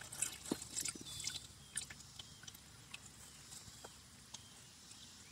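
Engine oil pouring from the open drain-plug hole of a 2010 Toyota Prius oil pan into a drain pan. It makes faint, irregular splattering and crackling, busiest in the first couple of seconds and then sparser.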